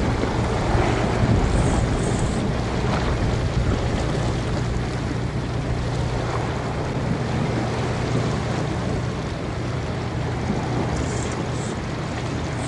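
Wind buffeting the microphone by the open sea, a steady rushing noise with a constant low drone underneath.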